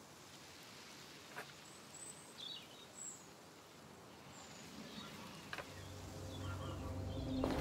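Faint outdoor garden ambience with small birds chirping a few times and a couple of soft clicks. A low rumble swells in over the last couple of seconds.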